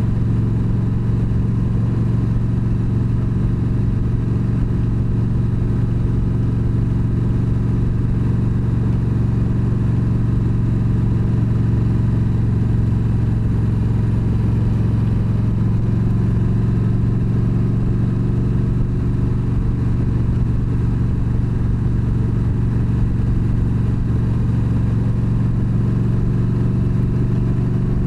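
Yamaha V Star 1300's V-twin engine running at a steady cruise, a constant low drone.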